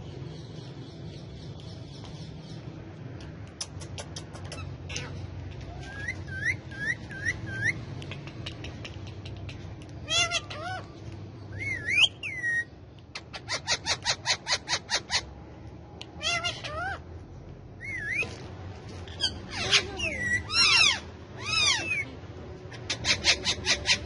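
Rose-ringed (Indian ringneck) parakeets calling and chattering: short shrill calls that bend up and down in pitch, with quick runs of repeated notes at about six a second, over a steady low background rumble.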